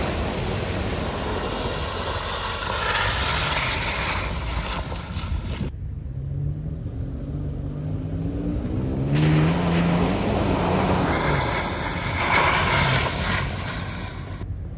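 Toyota 4x4s driving hard through a mud puddle: engines revving while the tyres throw mud and water. About six seconds in, the Toyota FJ Cruiser's engine note rises, then falls again a few seconds later.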